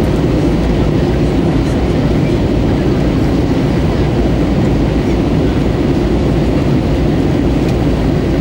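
Steady rumble of an Airbus A320-214's CFM56 engines and the rushing air outside, heard inside the passenger cabin during the descent toward landing.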